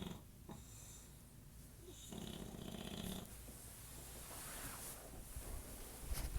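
English Bulldog snoring in its sleep: a buzzing snore about two seconds in that lasts about a second, between quieter, breathier breaths. A short low thump near the end.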